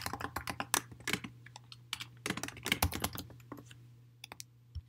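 Typing on a computer keyboard: a quick run of key clicks that thins out to a few scattered keystrokes near the end.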